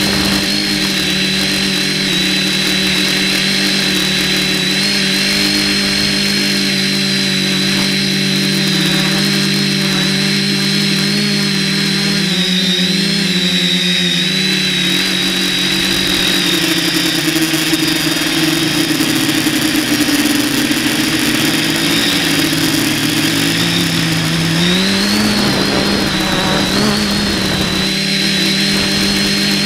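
Spider 450 quadcopter's brushless motors and propellers, heard from its onboard Mobius camera, humming steadily with a high whine over the buzz. The pitch wavers, sinks lower through the middle and swings back up about 25 seconds in as the throttle changes.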